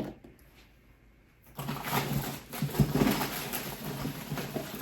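Plastic packaging rustling and crinkling as an item is unwrapped by hand, starting about one and a half seconds in.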